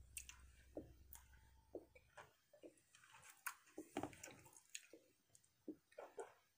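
Faint, wet smacking and squishing of a mouth chewing a large wad of bubble gum, five pieces at once, with irregular clicks several times a second.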